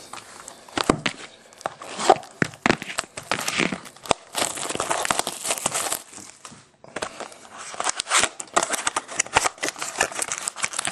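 Clear plastic wrap being torn off a trading-card box and crumpled in the hands, crackling irregularly. It stops briefly about two-thirds of the way through, then starts again.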